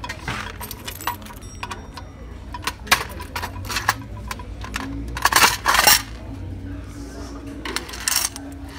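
Coins clinking as they are emptied from a candy vending machine during a collection: scattered clicks, with a louder rush of jingling coins about five seconds in and another near the end.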